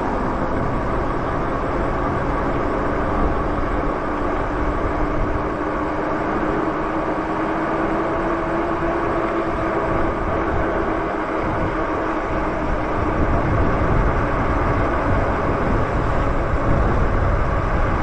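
Wind rushing over the microphone on an e-bike ridden at speed on pavement, with a steady low whine from the bike's electric drive.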